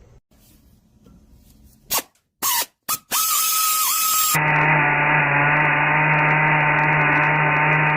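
Power drill boring out the smog holes in cast-iron Dodge 318 cylinder heads. It starts and stops a few times, with a brief high whine, then runs steadily at one pitch from about four seconds in.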